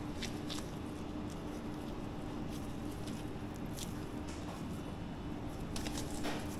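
Work-area background behind a sushi bar: a steady hum with scattered light clicks and taps from handling, a cluster of them near the end.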